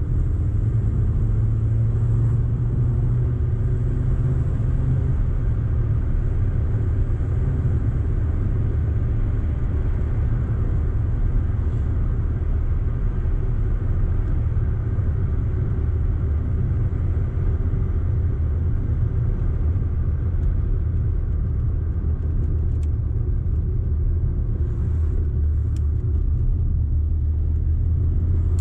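Audi car driving at a steady pace: continuous low engine and road rumble with a steady engine tone.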